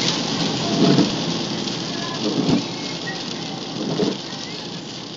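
Heavy rain hitting a car's roof and windscreen, heard from inside the car, with a low swish about every second and a half as the windscreen wipers sweep. The whole sound slowly grows fainter.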